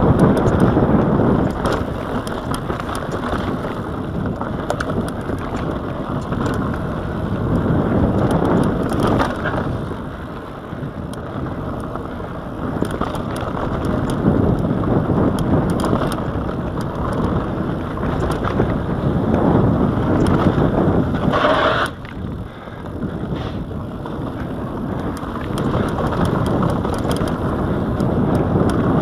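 Mountain bike riding fast down a dirt singletrack: wind buffeting the camera's microphone, with the tyres crunching over dirt and stones and the bike rattling over bumps. The noise swells and eases as the speed changes.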